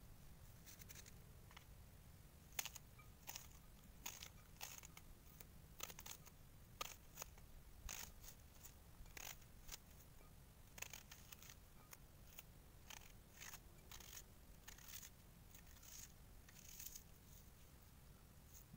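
Knife slicing through an onion held in the hand, making a string of crisp, irregular snicks, sometimes several a second.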